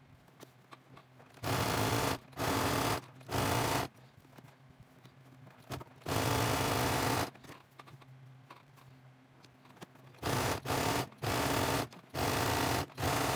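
Domestic sewing machine stitching a three-step zigzag to attach waist elastic, running in short stop-start bursts, about nine in all, each a second or less. Between bursts there are quieter rustles of the fabric and elastic being arranged by hand.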